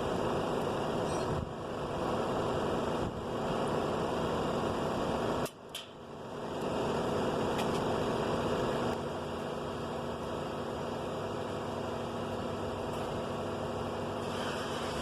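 Steady mechanical whirring noise, which drops out briefly with a click about five and a half seconds in and then runs on a little quieter.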